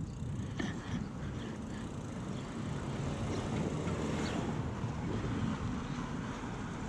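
Steady wind rush on a helmet-mounted GoPro's microphone, mixed with the rumble of a mountain bike's tyres rolling on pavement.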